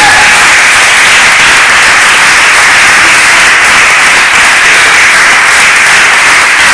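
Audience applauding, loud, dense and steady.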